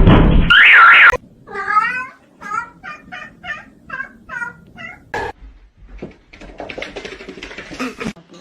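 A cat meowing in a run of about eight short, quick calls, after a loud noisy burst at the start; faint clicks and rustling follow.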